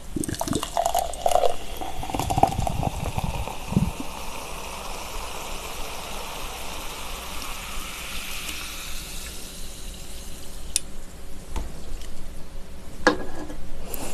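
Carbonated lemon-lime soda poured from a can into a glass, fizzing as it fills. A few knocks and clinks of the glass and can come in the first seconds and near the end.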